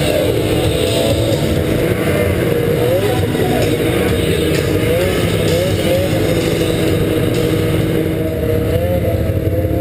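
Arctic Cat F5 Sno Pro snowmobile's two-stroke twin engine running at low speed, heard from on the sled. Its pitch rises and falls a little with the throttle.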